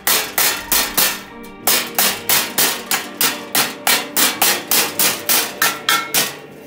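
Hand hammer striking the welded steel frame of a chair: a steady run of sharp, ringing metal-on-metal blows, about three to four a second, with a brief pause about a second in. The blows stop near the end.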